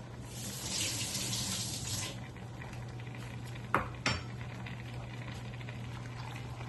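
Utensil working in a pan of stir-fried vegetables: a hiss of stirring for a couple of seconds, then two sharp clanks of metal on the pan about a second apart, over a steady low hum.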